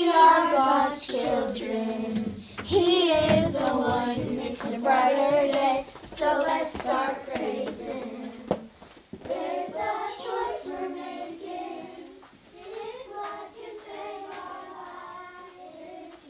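Children's voices singing together, loudest over the first nine seconds, then fainter voices that carry on to the end.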